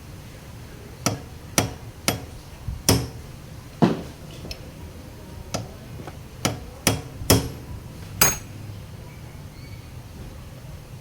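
Hammer striking metal: about eleven sharp, irregular blows, each with a short ring, over a low steady hum.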